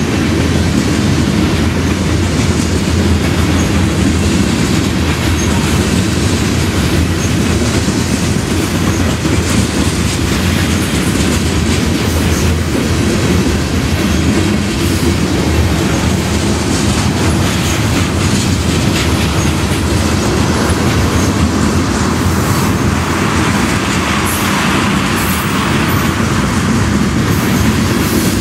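Freight train of tank cars and covered hoppers rolling past at a steady speed, a loud continuous rumble of wheels on rail with scattered clicks. A brighter hiss rises for a few seconds near the end.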